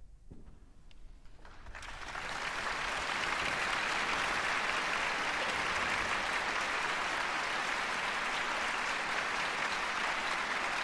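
Audience applauding: the clapping starts softly about a second and a half in, swells over the next second or so, then holds steady and loud.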